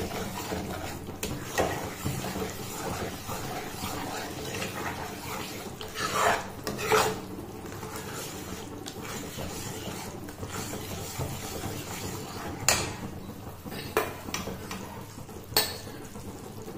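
Metal ladle stirring and scraping a thick gram-flour batter around a metal kadai on the stove, with a few sharper clinks of the ladle against the pan.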